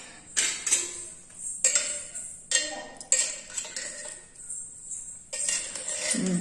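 Metal spoon knocking and scraping against the inside of a pressure cooker while mixing the cooked biryani rice: a series of sharp metallic clinks, each ringing briefly, roughly one a second.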